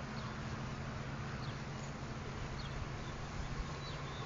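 A steady low mechanical hum under an even hiss, with a few faint, short, high chirps scattered through it.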